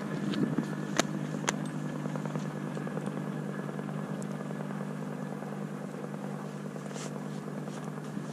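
A steady low mechanical hum, with two sharp clicks about a second in, half a second apart.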